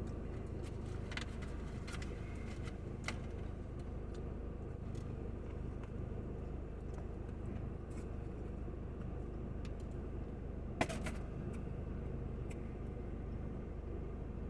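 Steady low background hum with a few faint clicks, and one sharper click about eleven seconds in.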